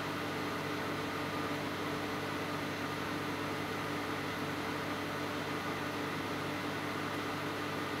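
Microwave oven running, with a steady hum and fan noise and no change in pitch or level, while it heats a microwave boiling cooker on its rotating turntable.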